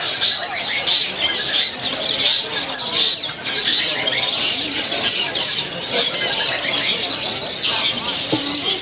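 Many caged long-tailed shrikes (cendet) singing at once: a dense, unbroken chorus of overlapping chirps and trills.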